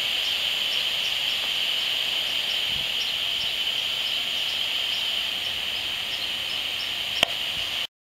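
Steady hiss from the loudspeaker of an HF35C RF analyzer, which renders the radio signals it picks up as sound, with faint regular ticks. About seven seconds in, one sharp loud click: a smart meter's RF pulse. The sound then cuts off suddenly.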